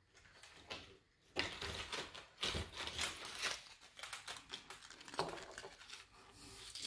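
Rustling and crinkling of small bags and packaging being handled and searched through on a tabletop, with light clicks and taps, starting about a second and a half in.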